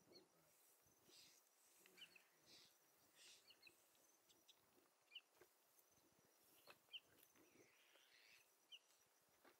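Faint sounds of an African buffalo grazing: soft tearing and crunching of grass as it crops, with a few short bird chirps.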